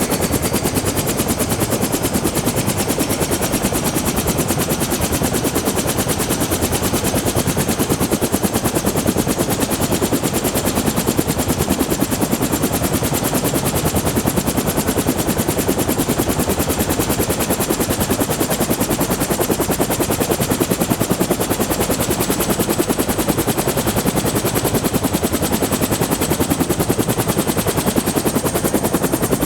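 Bell 212 helicopter's twin turboshaft engines and two-bladed main rotor as the throttle is increased: fast, even rotor chop under a high turbine whine that climbs in pitch, quickly at first and then more slowly.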